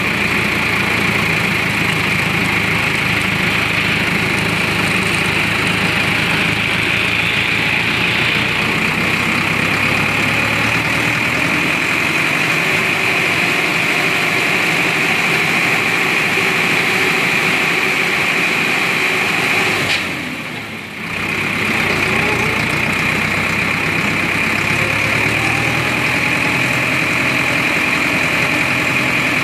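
Engine of a road-rail tractor running steadily as it travels along railway track, with a steady high whine over it. The sound drops briefly for about a second some twenty seconds in, then returns.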